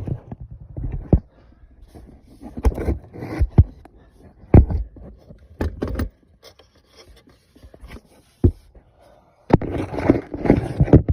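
Hand tools and metal parts knocking, clinking and scraping in irregular bursts while a replacement starter is bolted into the engine bay.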